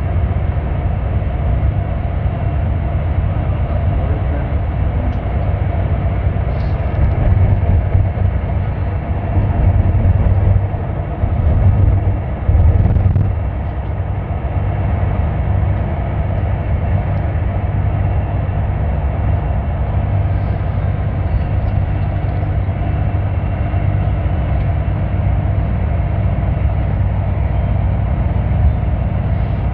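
Steady low rumble of a moving vehicle, heard from inside its cabin, swelling slightly now and then.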